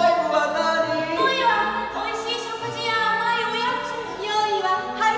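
Song with several singing voices over instrumental accompaniment with a stepping bass line.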